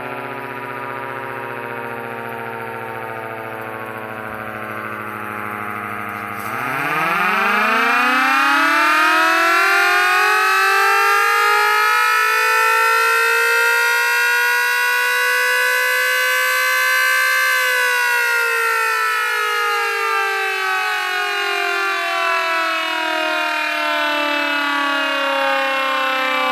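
Federal Model 77 mechanical siren: a low tone sinking slowly as it winds down, then about six seconds in it spins up again, its wail climbing steeply and louder to a peak about ten seconds later before sliding back down as it coasts.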